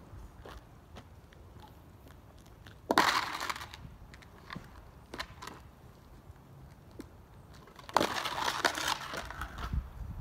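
Boots and snowboard scraping and crunching over the lake ice: a short rough scrape about three seconds in and a longer one near the end, with scattered small clicks between.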